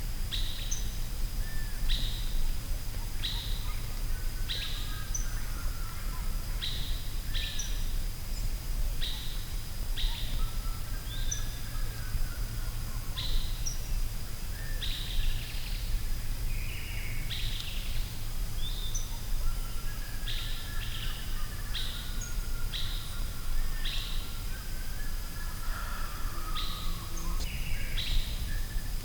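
Forest birdsong: short sharp chirps repeating roughly once a second, with softer warbling phrases between them, over a steady low rumble and a thin constant high tone.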